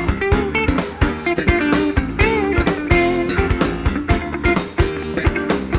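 Rock band playing live, an instrumental passage between vocal lines: electric guitar lines with bent notes over bass and a steady drum beat.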